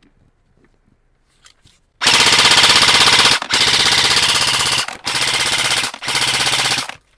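Double Bell AK 025-3 airsoft electric gun (AEG) firing on full auto in four bursts of about one to one and a half seconds each, starting about two seconds in, on a battery that is running low.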